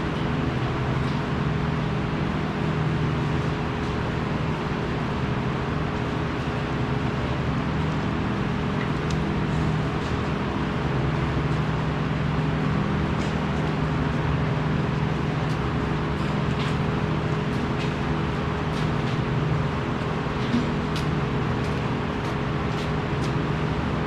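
Steady machinery hum with a constant noisy wash, like workshop equipment running, and scattered light clicks or taps in the second half.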